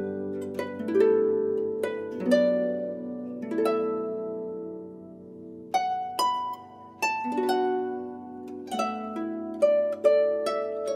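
Background music: a slow melody of plucked string notes, each ringing out and fading, over a low steady tone.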